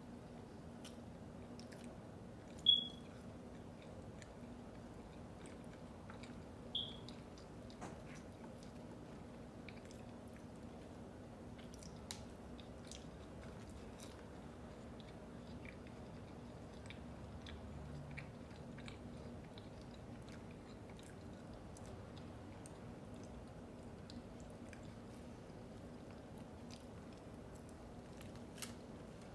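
Close-miked chewing of food, with many small wet mouth clicks over a faint steady hum. Two short high chirps stand out clearly above the chewing, about three seconds in and again about four seconds later.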